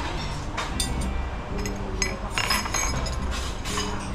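Metal cutlery and a ceramic cup clinking as a place setting is cleared from a marble tabletop: a series of light, irregular clinks over a steady low hum.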